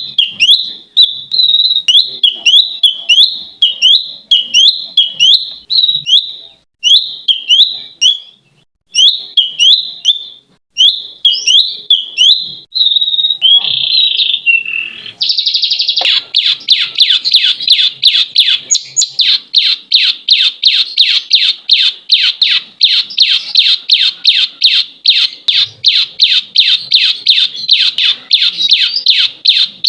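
A bird calling: sharp, hooked chirps repeated in short runs with brief gaps, then a little over halfway in a long unbroken rapid chatter of the same notes, several a second.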